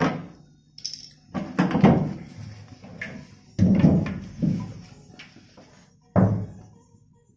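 Large square sheet-metal tin of cooking oil being handled and tipped, giving a series of hollow thumps and knocks, each dying away with a short ring.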